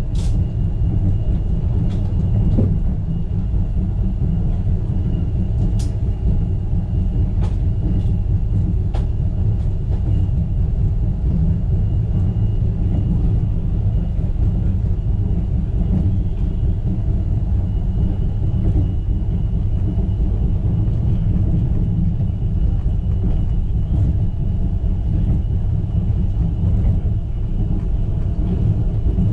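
Wuppertal Schwebebahn suspended monorail car running along its overhead rail, heard from on board: a steady low rumble with a faint high whine and a few light clicks.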